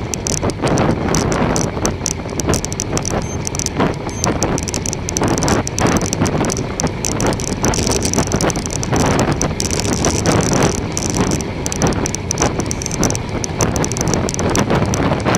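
Wind buffeting the microphone of a moving bicycle, with tyre and drivetrain noise underneath.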